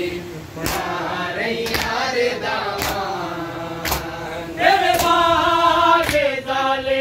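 A group of men chanting a Shia mourning lament (nauha) together, with sharp slaps of chest-beating (matam) keeping time about once a second. The chanting grows louder and fuller about two thirds of the way in.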